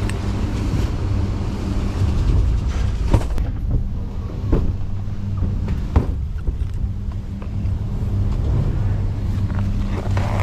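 Car on the move, heard from inside the cabin: a steady low hum of engine and road noise, with a few short knocks or clicks about three, four and a half and six seconds in.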